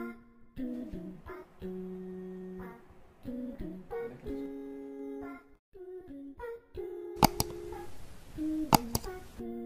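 Instrumental background music of held, sustained notes that change every second or so. A sharp click comes with a brief hiss about seven seconds in, and another click near the end, like the clicks of an on-screen subscribe-button animation.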